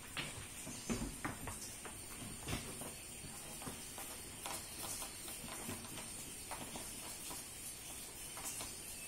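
Sirohi goats' hooves knocking on a raised slatted wooden floor: scattered, irregular footsteps, over a faint steady hiss.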